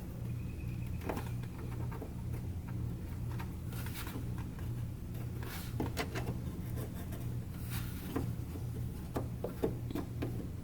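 Scattered light clicks and taps of hand work on a car's front bumper over a steady low hum.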